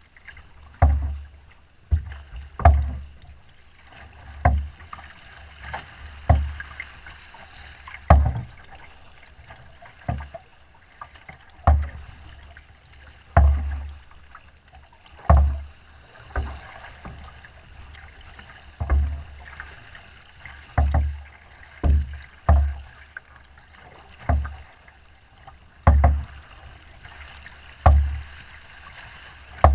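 Choppy lake waves slapping against a small boat's hull, a thump about every two seconds, with the steady hiss of wind-driven water between them.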